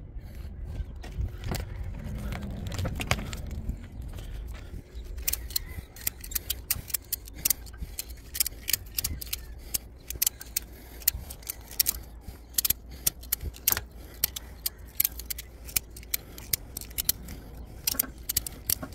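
Ratchet strap being cranked tight, giving rapid, irregular metallic clicks from about five seconds in as the strap hoists the heavy trike onto the hitch bike rack. A low rumble fills the first few seconds.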